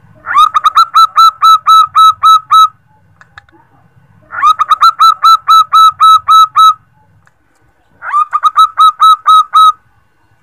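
Female zebra dove (perkutut) calling the male: three loud bouts of rapid, clipped notes, about four a second, each note a short falling chirp. Each bout lasts about two seconds, with a pause of a second or two between bouts.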